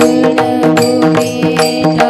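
Instrumental passage of a Marathi devotional bhajan: long held notes over a steady percussion beat, with no voice.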